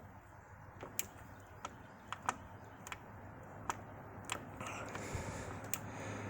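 Irregular metallic clicks and clacks from the stiff controls and parts of a new Bolton 16x40 lathe being worked by hand, about a dozen over a few seconds. A faint low hum builds under them in the second half.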